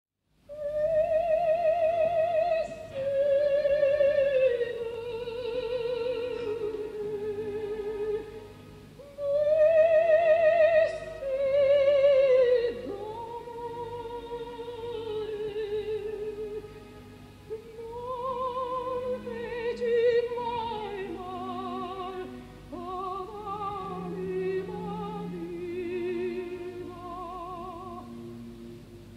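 Operatic soprano singing a slow aria with a wide vibrato over quiet orchestral accompaniment, in long phrases separated by brief breaths.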